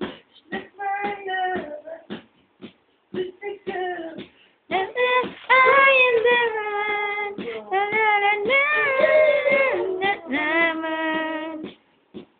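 A single high voice singing with no accompaniment: short, choppy syllables for the first few seconds, then long held notes that bend in pitch, stopping shortly before the end.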